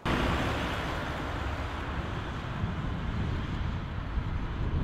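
A car driving on a road: steady engine and tyre noise with a low rumble.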